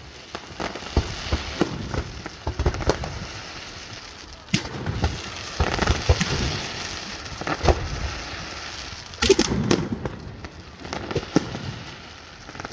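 Fireworks going off: a run of sharp bangs and crackles at irregular intervals, with a dense cluster of loud bangs about nine seconds in.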